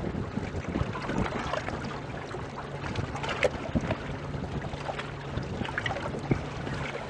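Small boat on choppy water: a steady low engine hum under wind and water noise, with scattered small knocks and clicks from the boat and the fishing gear.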